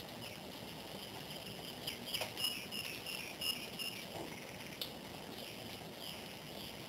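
A string of short, high chirping calls from an animal, about two to four seconds in, with a few sharp clicks, over a steady background hiss.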